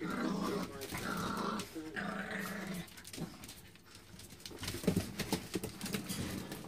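Puppies growling as they play-wrestle: three drawn-out growls in the first three seconds, then scattered scuffling and taps.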